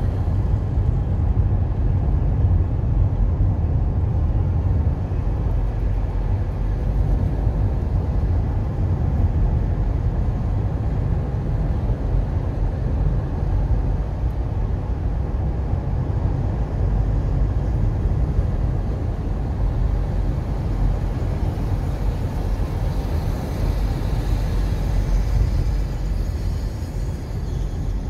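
Steady low rumble of tyre and engine noise inside a moving car, with a little more hiss in the last few seconds.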